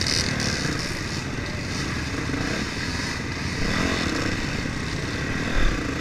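Several enduro dirt bike engines running and revving close by, including the nearest one, a Honda CRF450 single-cylinder four-stroke. There is a low thump shortly before the end.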